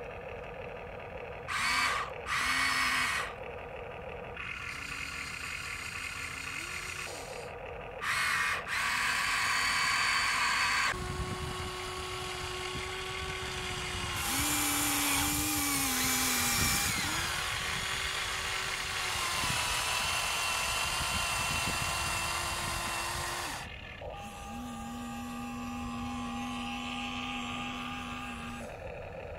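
Small electric motors of a radio-controlled model excavator whining in a series of short and longer spells as the boom, arm and bucket move. The pitch shifts and dips during the longer spells.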